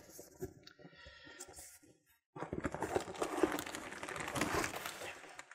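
Cardboard packaging and plastic wrapping rustling and crinkling as an inner cardboard tray is slid out of a tripod box. It is faint at first, cuts out briefly about two seconds in, then comes back denser with many small crackles.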